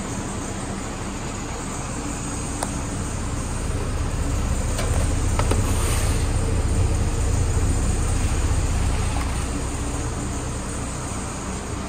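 2006 Hummer H3's 3.5-litre inline-five engine running steadily, growing louder for a few seconds in the middle and then settling back, with a few faint clicks.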